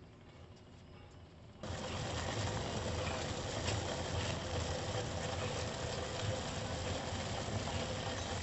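A pot of ginger kashayam boiling on the stove: a steady rumbling hiss that starts abruptly about a second and a half in.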